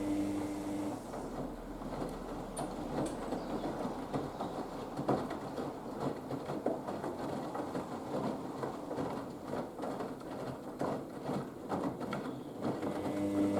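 Haier HWD 120 washer-dryer in the main wash of its 15-minute Express programme. The drum motor's hum stops about a second in, and then wet laundry and water slosh and patter in the drum with irregular soft knocks. The motor hum starts again near the end.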